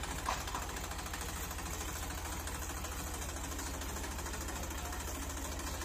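Massey Ferguson 241 DI tractor's three-cylinder diesel engine idling with a steady, even chug. A short sharp sound comes about a third of a second in.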